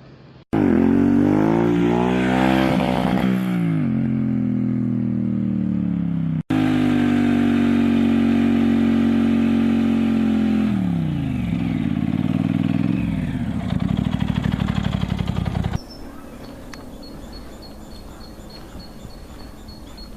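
Norton Commando 961's parallel-twin engine being revved: the pitch climbs and falls back, then after a cut it is held at high revs, falls off and settles into a lumpy, pulsing idle. About 16 s in the sound drops to a much quieter background with a faint steady high tone.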